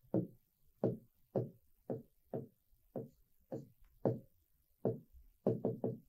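A series of light taps against the writing board, about two a second and unevenly spaced, with a quick run of three near the end.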